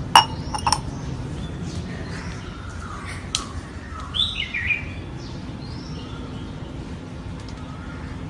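Stainless steel tumbler set down on a wooden floor, clinking with a metallic ring twice in the first second. Later, a small bird chirps a few times around the middle.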